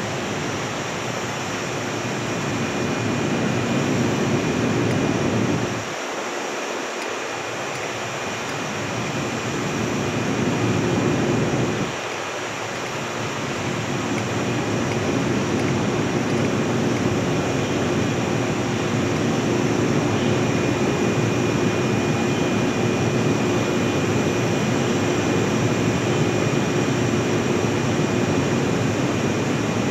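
Steady rushing and humming of electric trains at a platform: a JR West 227 series 'Red Wing' EMU pulls away while a yellow EMU stands close by, its on-board equipment giving a constant whine. The low rumble drops out briefly twice, about six and twelve seconds in.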